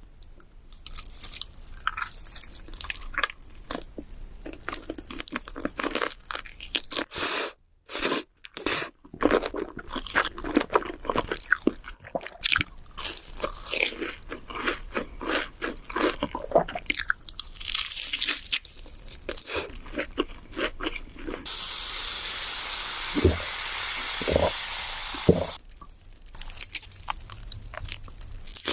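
Crunching and chewing of spicy seasoned chicken: a dense run of crisp bites and chews, briefly broken twice. Later, a steady hiss lasts about four seconds.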